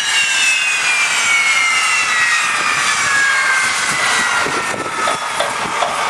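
English Electric Canberra's Rolls-Royce Avon turbojets spooling down after shutdown, their whine falling steadily in pitch.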